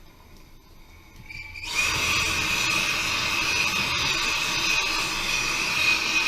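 An electric power tool's motor, quiet at first, starts about a second and a half in and then runs steadily with a high whine.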